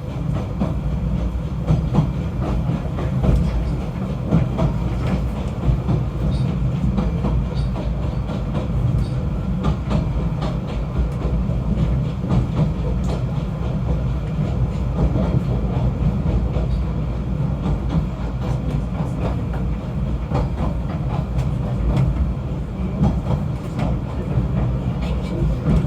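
Snowdon Mountain Railway train running: a steady, loud low rumble with frequent clicks and rattles from the running gear, starting abruptly.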